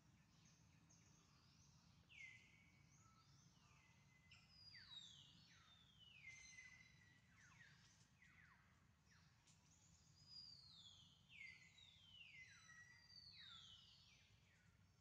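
Faint birdsong: many overlapping whistled calls, each sliding down from high to middle pitch, several a second, over a low steady background noise.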